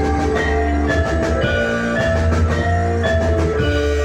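Instrumental music from an ensemble of frame drums, a gamelan-style metallophone, keyboard, electric guitar and bass guitar, with no singing. Short held melody notes step over a deep steady bass and drum strokes, and about three and a half seconds in the music settles into one sustained chord.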